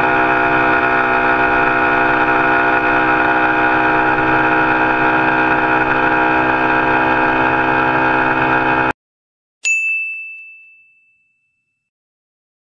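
Yamaha YBR 125's single-cylinder four-stroke engine held at full throttle near top speed, its pitch steady, with wind noise. It cuts off suddenly about nine seconds in. A single bright ding follows and fades away over about two seconds.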